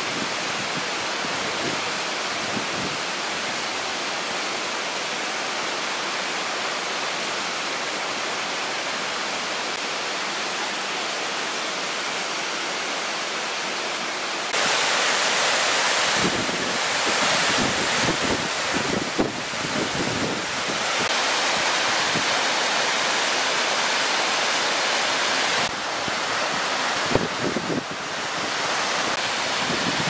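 Steady rushing of a rain-swollen mountain waterfall and the stream cascading below it. The roar gets louder about halfway through and drops back near the end, with wind buffeting the microphone now and then in the second half.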